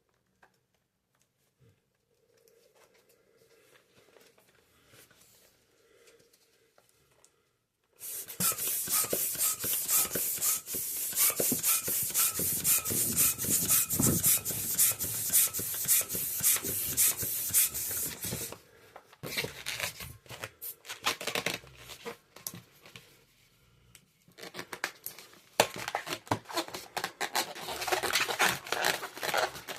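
Latex twisting balloons being rubbed and twisted by hand, giving a dense run of squeaky rubbing and crinkling. Near silence with faint handling sounds comes first. The rubbing starts loudly about eight seconds in, thins out for a few seconds past the middle, and picks up again near the end.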